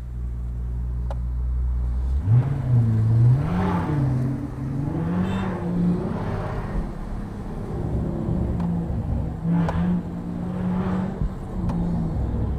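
BMW engine and exhaust running at a steady low idle, then accelerating about two seconds in, its note rising and falling in pitch several times.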